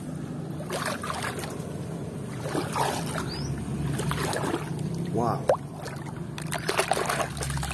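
River water sloshing and splashing in short bursts as a hand moves through it to reach a floating toy truck, with the most splashing near the end, over a steady low hum.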